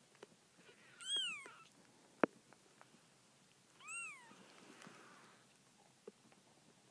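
Very young Savannah kitten mewing twice, two high-pitched calls that each rise and fall, about a second in and again about four seconds in. A single sharp click comes between them.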